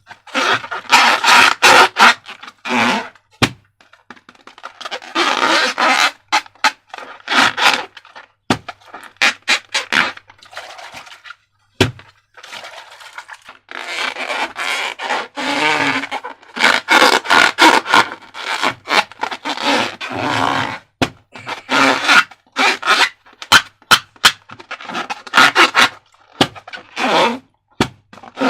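Slime being handled and mixed: stop-start scraping and stirring noises with many sharp, sticky clicks.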